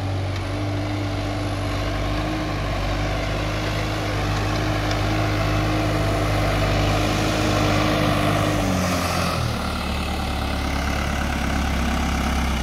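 New Holland TT4.75 tractor's diesel engine running steadily under load while ploughing, growing louder as it comes closer; about nine seconds in its pitch drops and it runs on at lower revs.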